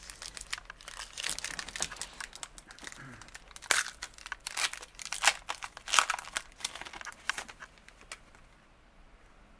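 Foil wrapper of a Panini Totally Certified trading-card pack being torn open and crinkled by hand: a rapid run of sharp crackles and rips, loudest in the middle, dying away near the end.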